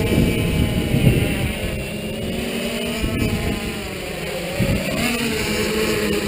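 Tarot FY680 hexacopter's six brushless motors and 12-inch carbon propellers buzzing as it comes down to land under a heavy load, the pitch sliding up and down with the throttle. Gusty wind rumbles on the microphone throughout.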